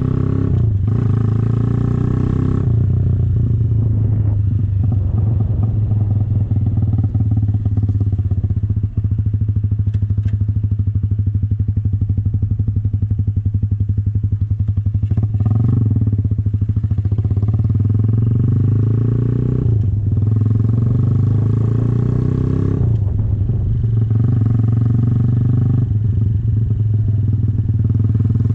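RPS Condor 150cc Honda Grom-clone motorcycle with a loud aftermarket exhaust, ridden along: a steady, loud engine note that dips and shifts in pitch several times with throttle and gear changes.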